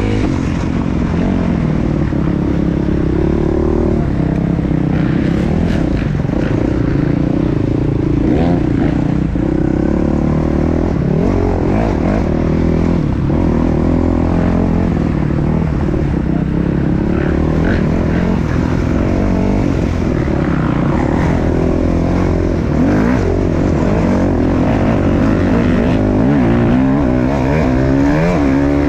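250cc dirt bike engine running hard under the rider, its pitch rising and falling continuously with throttle and gear changes.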